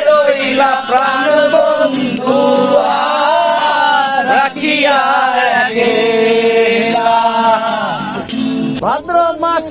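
A Bengali folk-style song, sung in long, drawn-out, wavering notes.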